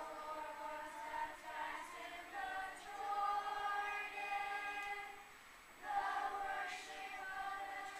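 Children's choir singing together, holding long notes, with a short pause for breath about five and a half seconds in before the next phrase.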